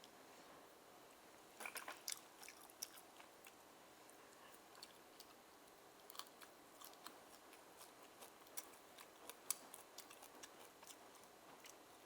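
Steamed oysters being chewed close to the microphone: scattered short, wet mouth clicks and smacks.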